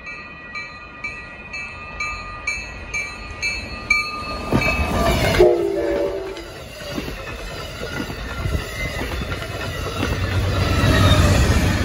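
A grade-crossing bell dings about twice a second. About four and a half seconds in, an Amtrak passenger train's horn sounds briefly, its pitch dropping as the locomotive passes. Then the passenger cars rumble and clatter by at speed, louder near the end.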